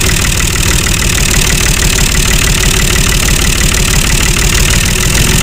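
Tractor engine idling steadily with an even, regular chug.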